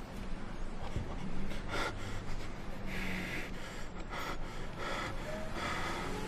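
A person breathing heavily in four or five sharp breaths about a second apart, over a steady low hum.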